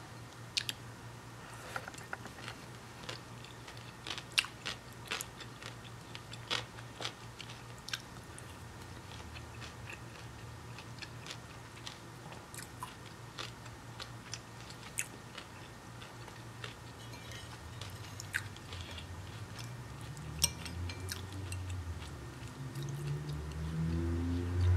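Close-up chewing of crunchy sliced cucumber salad, with sharp crunches every second or so. Near the end, background music comes in.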